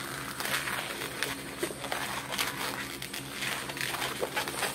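Long latex modelling balloon being squeezed and twisted by hand into a chain of small bubbles: a run of short rubbing and crinkling sounds of the stretched latex, with a few brief squeaks.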